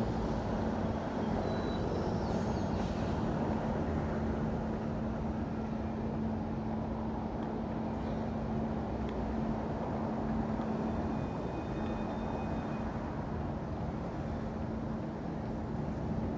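Daytime city street ambience: a steady wash of traffic noise with a constant low hum, and a few faint brief high tones and clicks on top.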